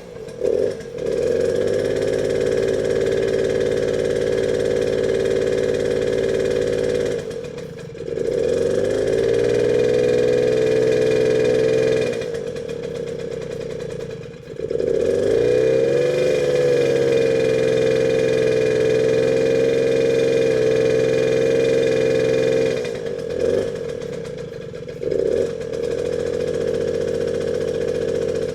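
Suzuki JR50 mini bike's small two-stroke single running at a fast, even pace. Twice it sags and then picks up again with a rising note, and there are a few short uneven blips at the start and again near the end. The engine won't hold a proper idle and its idle screw is being set.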